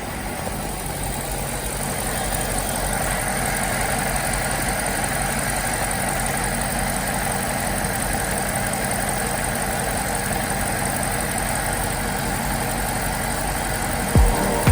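BMW X5 E70 4.8i's N62 4.8-litre V8 idling steadily, its misfire cured by a new set of Delphi ignition coils. Near the end a few deep beats come in as music starts.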